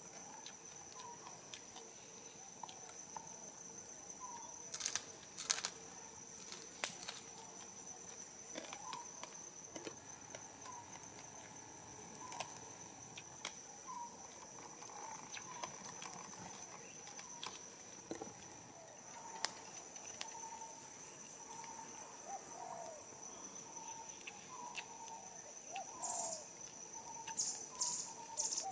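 Woodland ambience: a steady high-pitched insect drone with short chirping calls repeating around it and a few scattered sharp clicks, then a quick run of higher calls near the end.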